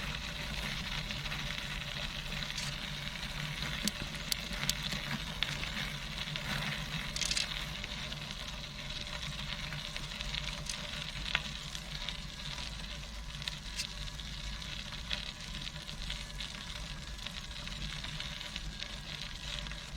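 Tandem bicycle's tyres rolling on a gravel path: a steady crackling hiss with scattered small clicks of stones.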